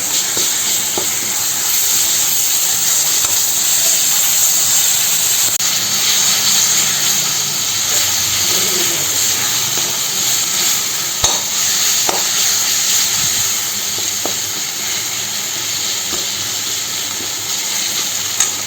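Crushed shallots, garlic and ginger-garlic paste frying in sesame oil in a pan: a steady sizzle. There are a few brief knocks, twice about two-thirds of the way through and once near the end.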